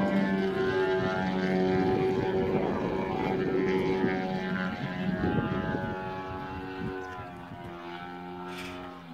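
Giant-scale RC Extra 330SC aerobatic model plane's engine and propeller running in flight, a steady note that fades steadily as the plane draws away.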